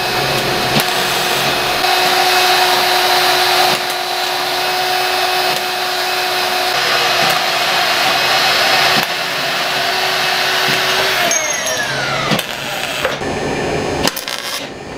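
Angle grinder running with a steady whine as it grinds into an aluminum tube, the sound shifting as the disc bites. About eleven seconds in it is switched off and spins down with a falling whine, followed by a few light clicks.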